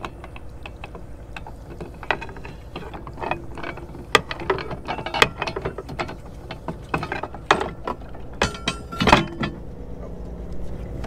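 Anchor windlass hauling in steel anchor chain, the links clanking and clicking irregularly over the bow roller and into the windlass, over a steady low hum. A loud run of clanks comes about nine seconds in, as the anchor comes up and seats against the bow.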